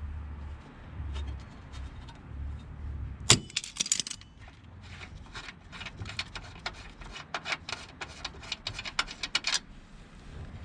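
A single sharp metallic clank about three seconds in, then several seconds of rapid, irregular metal clicking and clinking that stops shortly before the end.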